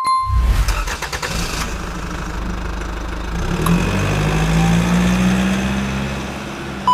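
A short bell-like ding, then an engine running and revving, its pitch rising in the middle and easing off near the end.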